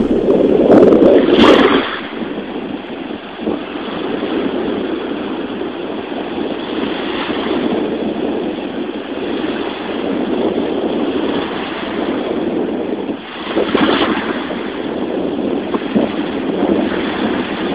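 Sea surf washing onto a sandy beach, with wind buffeting the microphone: a steady rushing that swells and eases, louder for the first couple of seconds.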